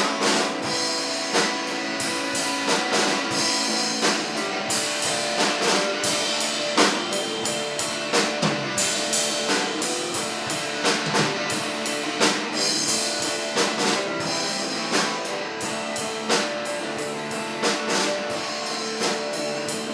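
A live rock band playing an instrumental passage, with drum kit and guitar and no vocals.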